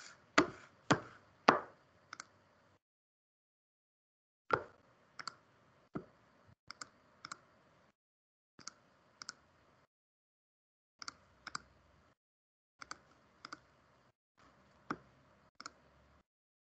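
Sharp clicks and taps from a device being handled and turned around, many coming in quick pairs, in clusters with dead silence between them.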